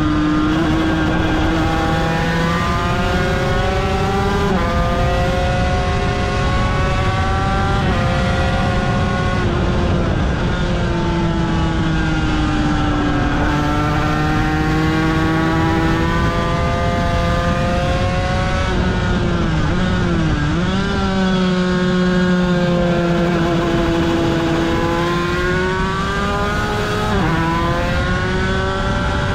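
1995 Aprilia RS250's two-stroke V-twin engine at racing speed: it climbs in pitch and steps down at each quick upshift, sags slowly for several seconds, then drops sharply with a few quick blips about two-thirds through before pulling up through the gears again. A constant rush of wind runs underneath.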